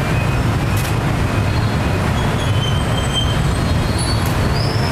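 Steady rumble of busy street traffic, loud and unbroken, with no single vehicle standing out.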